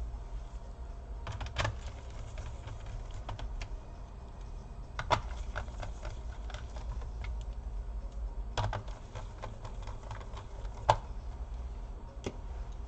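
Scattered small clicks and taps of hands working on a laptop's plastic case, with screws and a screwdriver being handled during reassembly. A steady low hum runs underneath.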